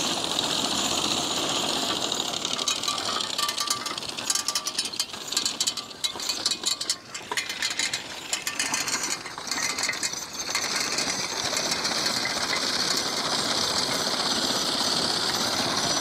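Horse-drawn sickle-bar mower cutting thick hay: the fast, steady metallic clatter of the reciprocating knife driven by its pitman rod. The level wavers through the middle and is steady again near the end.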